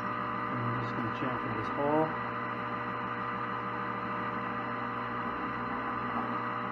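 Metal lathe running with a steady hum made of several tones while a tailstock-held tool chamfers the hole in the end of a brass bead. A short wavering tone rises and falls about two seconds in.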